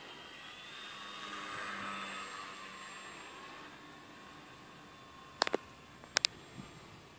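Home-built Depron PZL P.11c model park flyer's electric motor and propeller whining as it flies past: the pitch rises and the sound swells, loudest about two seconds in, then the pitch drops and it fades as the plane moves away. A sharp click, then a quick double click, near the end.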